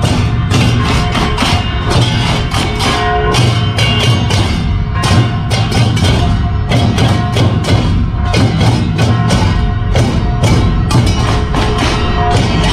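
Percussion-led music with a fast, steady beat: rapid wood-block clacks over drums, with a few held pitched notes ringing above.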